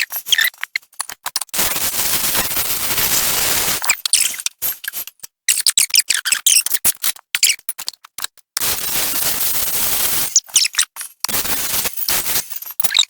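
MIG welder arc crackling in runs of a second or two that keep cutting out and stuttering back on. The wire spool is running out, so the wire stops feeding.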